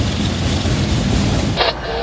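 Freight train's autorack cars rolling past close by: a steady, loud rumble and rush of steel wheels on rail. About a second and a half in it stops abruptly, giving way to a thinner, choppier sound with a faint steady tone.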